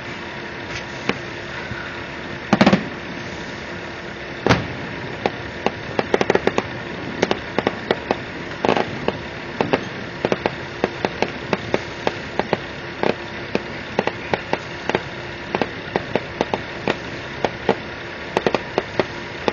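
Fireworks going off: two loud bangs a couple of seconds apart, then a long run of rapid, irregular crackling pops, several a second, over a steady background hum.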